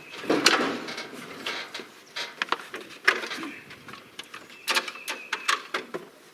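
Irregular mechanical clicks and clanks of metal being handled. The sharpest knocks come about half a second in and again around three seconds, and a quick run of clanks near five seconds carries a brief metallic ring.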